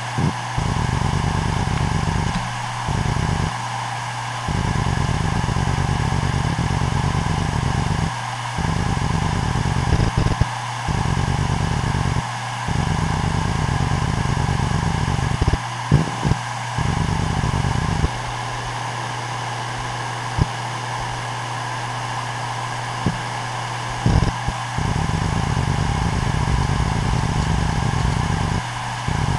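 Toshiba P300 HDWD130 3 TB 7200 rpm 3.5-inch hard drive, spun up and running from initialising into idle: a steady spindle hum with a lower rumble that cuts out and returns every few seconds, and occasional sharp clicks of head activity.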